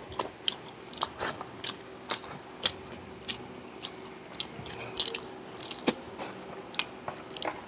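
A person chewing and crunching food close to the microphone, with many short, sharp crunches at an irregular pace.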